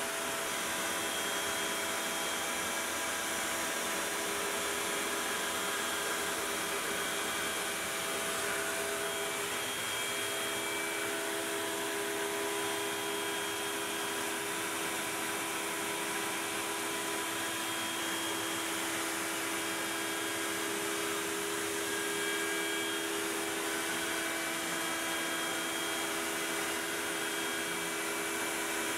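Makita router spinning in a CNC machine as it cuts grid lines into an MDF spoil board, with a dust-collection vacuum running alongside. It makes a steady whine of a few held tones over an even hiss, and the pitch shifts slightly about ten seconds in.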